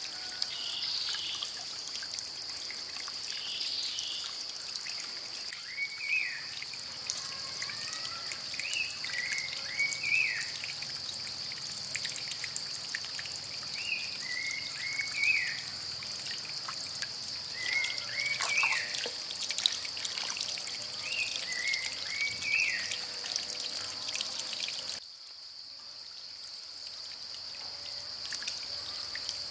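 Outdoor ambience: a bird repeats a short whistled call phrase every few seconds over a steady high hiss and a water-like trickle. The whole background drops suddenly near the end.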